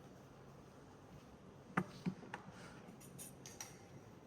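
A few light clicks and knocks of plastic breathing tubes and connectors being handled, a cluster about two seconds in and fainter ones a second later, over quiet room tone.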